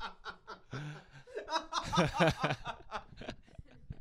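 Several people laughing together in quick, breathy pulses, loudest about two seconds in.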